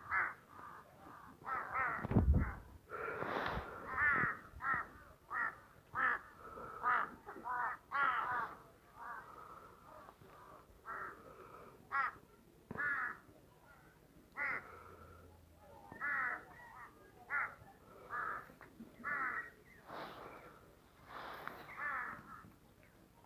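Crows cawing repeatedly, short harsh caws coming about once or twice a second and growing more spaced out in the second half. A low thump sounds about two seconds in.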